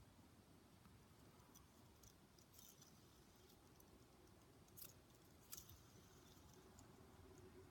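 Near silence: faint handling noise with a few soft clicks, one about two and a half seconds in and two close together around five seconds in.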